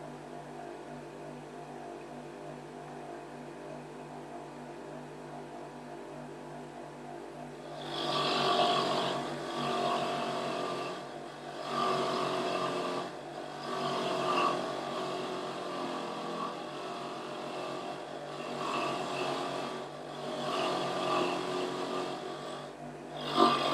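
A homemade electric grinding tool runs steadily, then about eight seconds in a metal part is pressed against it again and again to strip off old paint, each pass a louder, rougher grinding lasting a second or two.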